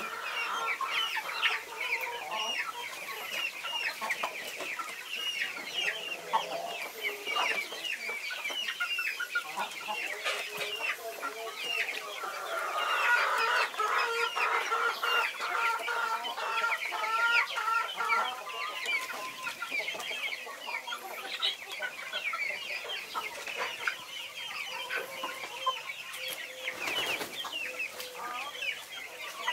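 A flock of young chickens clucking and calling continually while they feed at a trough, with many short high calls. A louder run of longer, lower calls comes about midway.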